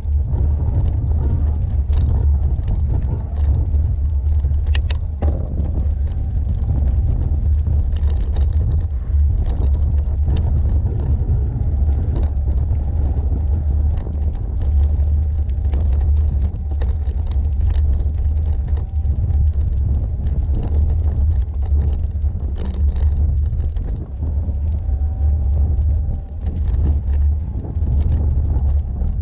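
Riding noise of an e-bike rolling along a gravel track, picked up by a handlebar-mounted camera: a steady low rumble of tyres on loose stones and wind on the microphone, with small rattles and clicks and one sharp click about five seconds in.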